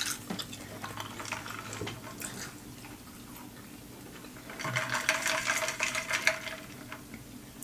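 Close-miked chewing of a lemon pepper chicken wing, with small clicks and wet mouth sounds. A little past the middle comes a louder, wetter noisy stretch of about two seconds, then quieter clicks.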